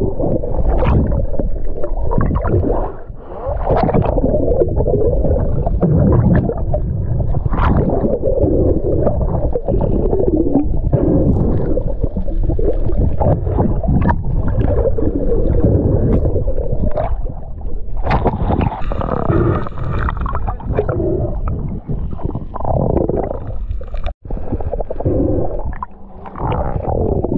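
Muffled underwater sound picked up by a camera in the sea: dense, low rushing and gurgling of water with bubbles and frequent small knocks against the housing, the camera moving between underwater and the surface.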